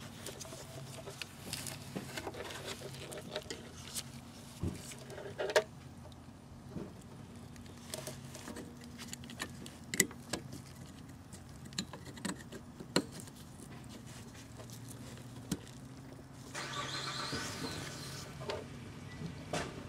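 Scattered light plastic clicks and knocks of a headlight bulb's wiring connector and its wiring being handled and pushed on, with a stretch of scraping and rustling near the end, over a faint steady hum.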